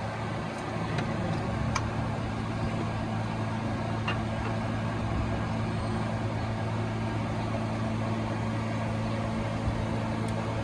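Toyota 1ZZ-FE 1.8-litre four-cylinder engine running steadily, with a few sharp clicks in the first four seconds.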